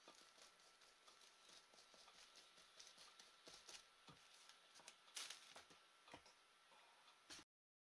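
Very faint, irregular taps and light scratches of a paintbrush dabbing paint onto a textured canvas, a few louder taps about five seconds in; the sound cuts off suddenly near the end.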